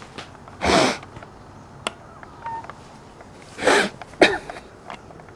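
A woman crying: two loud breathy sobs, about a second in and again near four seconds, with a sharp click just after the second.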